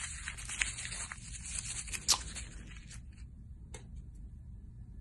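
Rustling and crackling made of many small clicks, which dies down about three seconds in, leaving a faint single click near the end.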